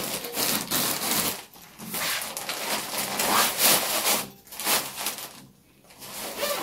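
Rustling and rubbing of a soft fabric tote bag being handled and slung over the shoulder, coming in several bouts with short quieter gaps.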